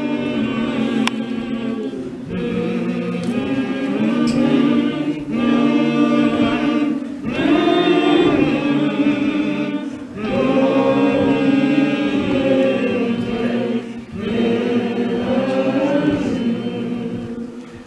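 Church choir singing a hymn of invitation in long, slow sung phrases, with short breaks between phrases every few seconds.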